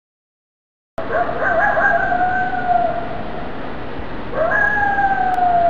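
A coyote howling twice, starting about a second in. The first howl wavers as it climbs, then holds and slowly falls. The second rises quickly, then slides slowly down.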